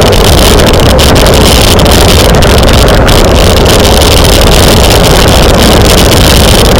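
Heavy wind noise on a bicycle-mounted camera's microphone while riding at race speed: a steady, very loud roar with no letup.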